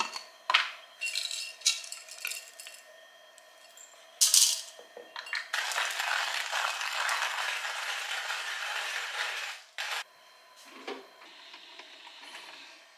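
Coffee beans rattling and clicking as they are poured into a manual burr coffee grinder with a glass jar. About five and a half seconds in, the hand crank starts turning and grinds the beans with a steady grinding noise for about four seconds, then stops abruptly.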